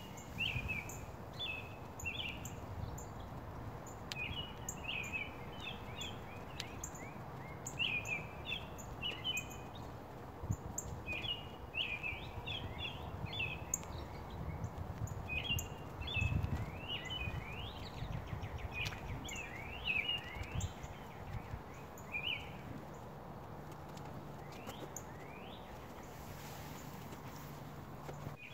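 Small birds chirping in short bursts of quick notes every couple of seconds, over a steady background hiss.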